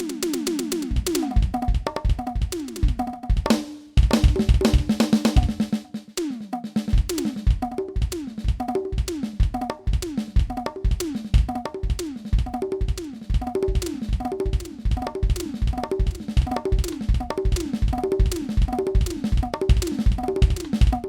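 Yamaha DTX700K electronic drum kit played in a steady groove on one of its unusual kits: bass drum and snare hits with pitched electronic tones that slide downward after the strokes, about two a second. A rapid run of falling tones opens the passage, and the pattern breaks briefly around the middle before the groove resumes.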